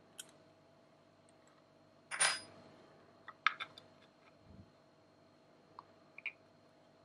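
Small plastic parts of a 3D-printed motorcycle tank cap clicking and clattering as they are handled and fitted together. There is a brief clatter about two seconds in, which is the loudest sound, a sharp click at about three and a half seconds, and a few soft clicks near the end.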